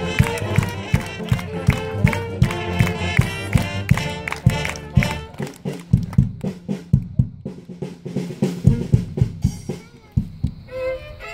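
Band music with a steady drum beat on snare and bass drum, about three hits a second, under a melody. About ten seconds in it drops to a quieter, different passage.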